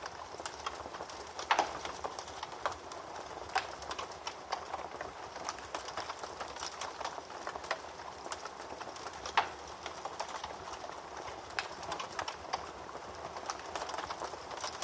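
Wood fire burning in a fireplace: a steady crackle with irregular sharp pops and snaps, the loudest about a second and a half in and again about nine seconds in.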